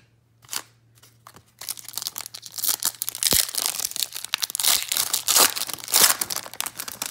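Foil wrapper of a 2005 SPX football card pack being torn open and crinkled as the cards are pulled out. The crinkling starts about a second and a half in and is dense and loud.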